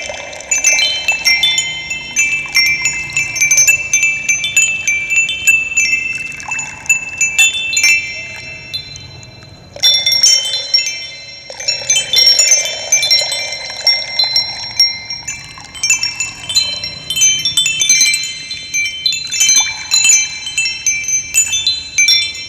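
Wind chimes ringing, many high tones struck in overlapping clusters that thin out and then start up again in a fresh flurry about ten seconds in, over a steady wash of running water.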